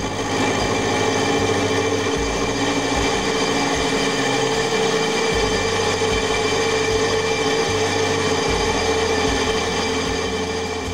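Milling machine running with an end mill cutting a metal locomotive frame plate: a steady whine made of several held tones, over the noise of the cut, fading out near the end.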